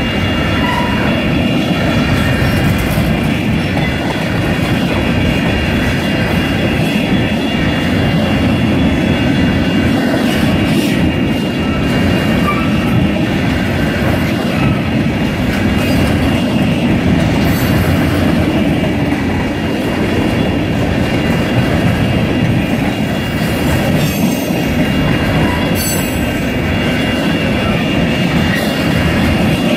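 Freight train of covered hopper cars rolling steadily past at close range: a continuous rumble and clatter of steel wheels on the rails, with faint steady high tones over it.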